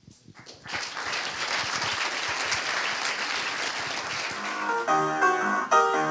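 Audience applauding, then a music track with a melody of clear pitched notes comes in about four and a half seconds in as the applause fades under it.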